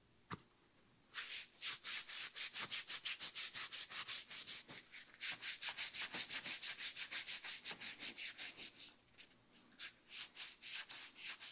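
A Sweet Patina TKO hand wipe scrubbed quickly back and forth over a forearm and hands, about four to five even rubbing strokes a second. The scrubbing starts about a second in, pauses briefly near the end, then resumes.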